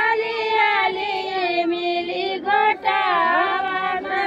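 High-pitched voices singing a folk song unaccompanied, with long held notes that slide up and down in pitch.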